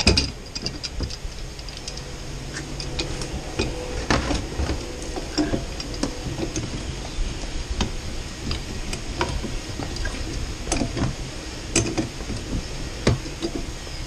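Irregular sharp clicks and clinks of a wrench working on a sump pump's pipe fitting, as a replacement pump is fitted to its discharge pipe.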